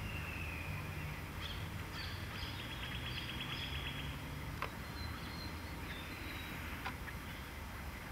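Outdoor birdsong over a steady low rumble: a falling whistle near the start, a rapid trill about three seconds in, then scattered short chirps and a few sharp clicks.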